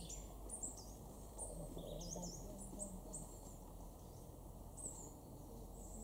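Small songbirds calling: a scatter of short, thin, high-pitched notes, many dropping in pitch, several a second in the first half, fewer in the middle, then more near the end.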